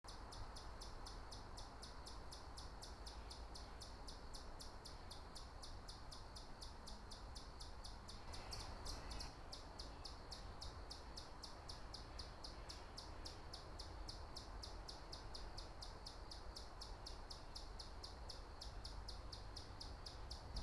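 Outdoor ambience: a steady, rapid high chirping, about five chirps a second, over a faint low rumble, with a brief extra call about eight and a half seconds in.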